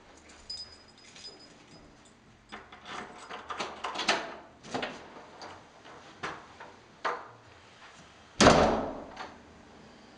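Footsteps and knocks in a hallway, then one loud bang of a wooden door about eight seconds in.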